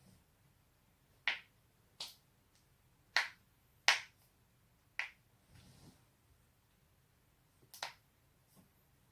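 Joints being cracked: six sharp, separate pops spread over several seconds, the third and fourth the loudest.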